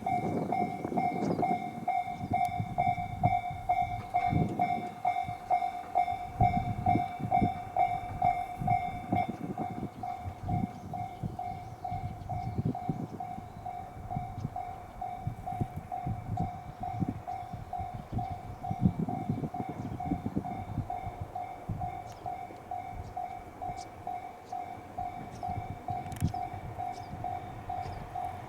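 Japanese railway level-crossing alarm ringing in a steady, even pulse while a train runs through the crossing, its wheels rumbling and clattering over the rails.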